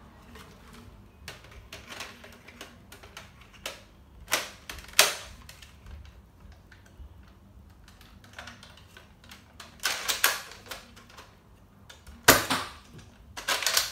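Hard plastic clicks and clacks of a pump-action Nerf dart blaster being put together, primed and fired: a handful of scattered sharp clacks, the loudest about five and about twelve seconds in.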